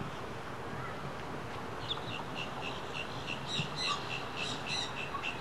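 A small bird calling in a fast, even series of short high chirps, about four a second, starting about two seconds in, over a steady background hiss.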